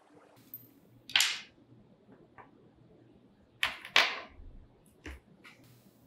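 An Allen key, limb bolt and washers of a take-down recurve bow being handled and set down on a hard tabletop: a sharp clack about a second in, two more close together near four seconds, and a softer tap shortly after.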